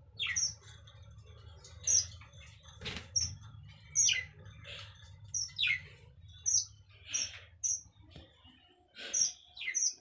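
Caged finches chirping: short, high calls about once or twice a second, many dropping sharply in pitch. One sharp tap comes about three seconds in.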